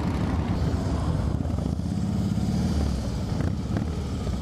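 Several Harley-Davidson V-twin motorcycle engines idling together, a steady low running sound from a group of bikes waiting to set off.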